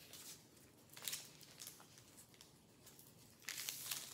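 Quiet rustling and crinkling as a new handbag's straps and their plastic wrapping are handled, in several short bursts, with a louder stretch of crinkling near the end.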